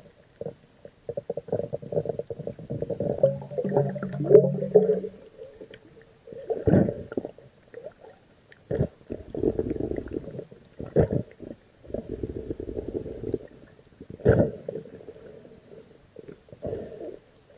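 Muffled underwater rumbling from a submerged camera: water surging around it in irregular bursts every second or two, with a few short sharp clicks and knocks.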